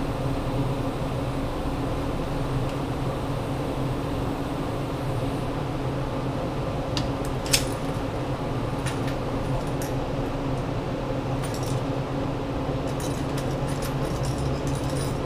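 Metal links of a whip chain clinking and jingling, a scatter of light clicks starting about seven seconds in with one sharper click, over a steady mechanical hum.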